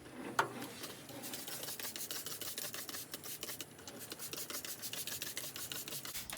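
A cleaning cloth scrubbing glass in quick back-and-forth rasping strokes, with one sharp knock near the start.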